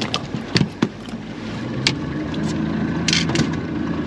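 A boat motor hums steadily, its level rising a little from about a second and a half in. Several sharp knocks and taps come in the first two seconds, with a short hiss about three seconds in.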